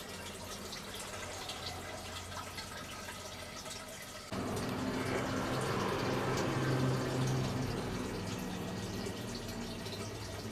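Water trickling and splashing through the PVC channels of a hydroponic growing system, over a steady low hum. It gets louder all at once about four seconds in.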